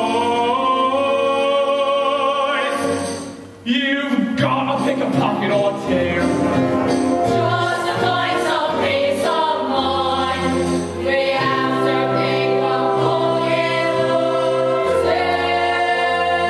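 Stage musical number: voices singing over instrumental accompaniment. The music dips briefly about three and a half seconds in, then comes straight back in.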